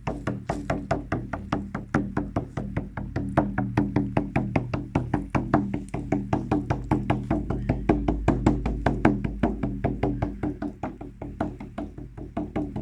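Fast, steady drumbeat of about five strikes a second over a low droning hum. It eases off a little in loudness toward the end.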